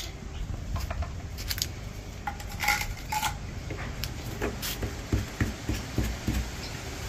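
A few light metallic clinks and knocks of objects being handled, the loudest pair about three seconds in with a short ring, over a low steady rumble.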